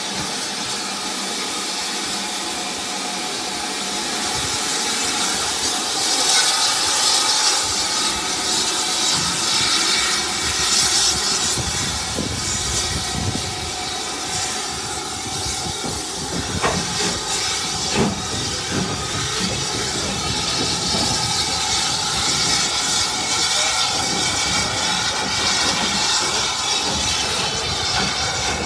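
U class 2-6-0 steam locomotive 31806 moving off, with a loud steady hiss of escaping steam and a rumble that builds a few seconds in. There are a couple of sharp knocks about midway.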